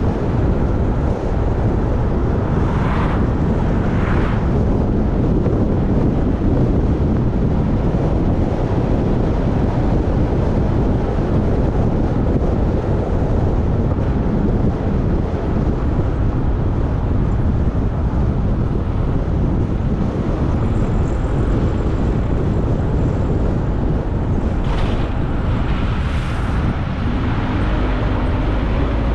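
Steady wind buffeting on the microphone and road rumble from a vehicle driving along a road. Two pairs of brief whooshes come in, a few seconds in and again near the end, and a steady engine hum joins in just before the end.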